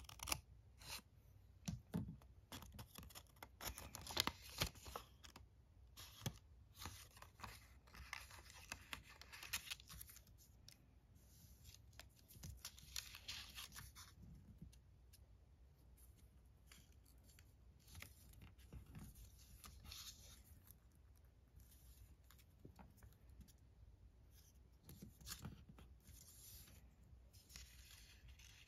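Small scissors snipping through a folded strip of origami paper, a series of short, quiet cuts, followed by the softer rustle of the paper being folded and creased by hand. A few louder paper sounds come near the end.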